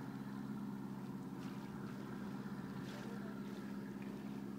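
Steady low drone of a boat engine running out on the water, with a few faint swishes from the choppy water.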